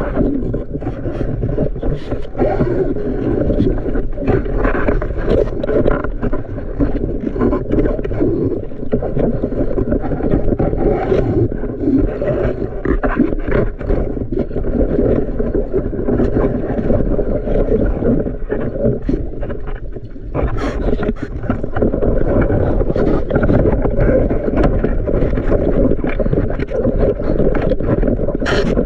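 Muffled rush of moving water heard through an underwater camera housing, with scattered clicks and knocks.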